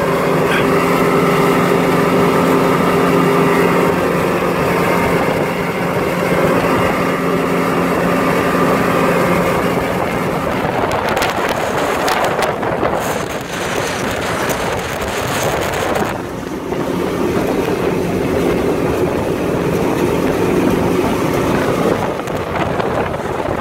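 Yamaha 250 hp V6 outboard on a pontoon boat running at speed, a steady engine hum under the rush of wind and water. For several seconds midway the wind rush takes over and the engine hum fades, then the hum comes back.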